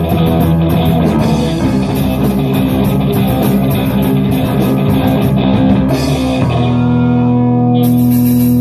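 Rock played on electric guitar with drums. About six and a half seconds in, the drumming stops and a guitar chord is left ringing.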